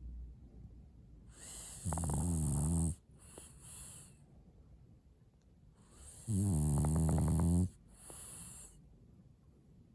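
French bulldog snoring in its sleep: two long, loud rattling snores about four and a half seconds apart, each followed by a softer breath.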